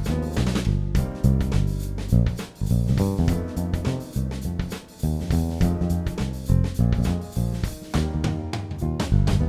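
Instrumental background music with a steady drum beat and a bass line.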